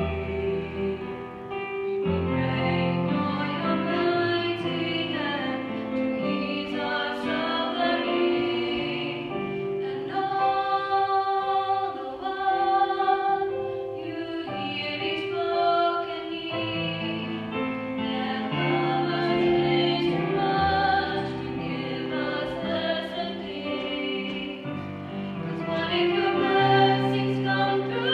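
A vocal trio, two young women and a young man, singing together in harmony, accompanied by an organ playing long held chords.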